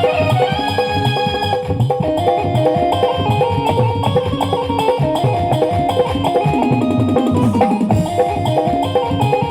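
Roland XPS-60 arranger keyboard playing a melody over a drum-and-percussion rhythm. A low note slides down in pitch about seven seconds in.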